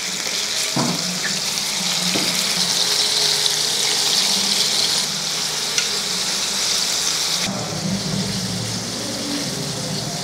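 Oil sizzling steadily around fish steaks shallow-frying in a stainless steel pan, with a few light clicks of forks against the pan as the steaks are turned over. The sizzle eases about seven and a half seconds in.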